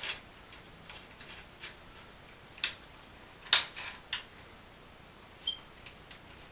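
A handful of short, sharp clicks and taps at irregular spacing, the loudest about halfway through: hands handling the compression fittings and acrylic tubing inside a PC case.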